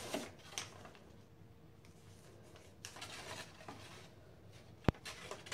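Faint rustling of a paper note being handled and unfolded, with one sharp click a little before the end.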